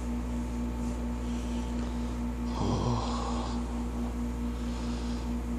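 A man's short, low groan about halfway through, from being massaged, over a steady background hum.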